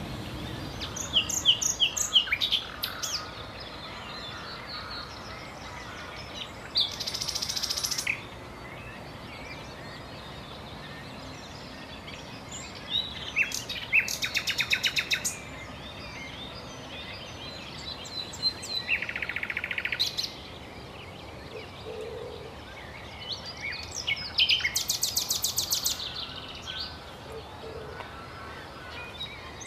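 Songbirds singing in short songs and fast trills every few seconds, over a steady hiss of open-air background.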